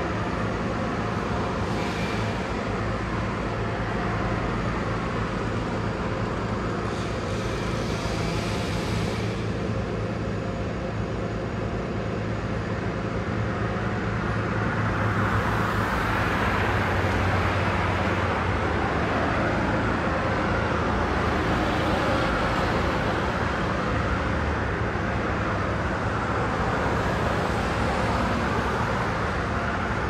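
A steady low engine hum from work trucks running, with road traffic that swells and fades a few times in the second half as vehicles pass.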